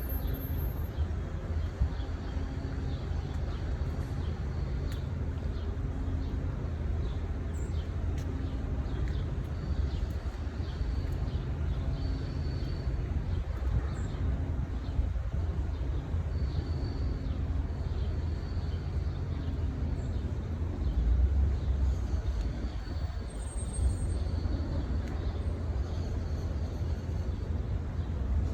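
Outdoor ambience: a steady low rumble with faint short high chirps now and then.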